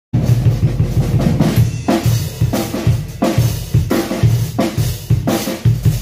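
Drum kit played in a steady groove. A deep black Tama S.L.P. snare drum hits the backbeat about every 1.3 seconds over repeated kick drum strokes and a constant wash of cymbals.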